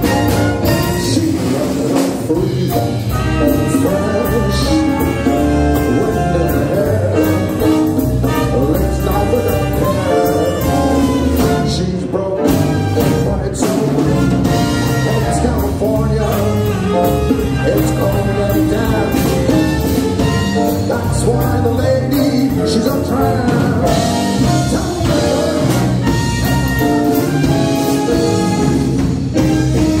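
Live big band playing swing jazz: a horn section with trumpet over a drum kit.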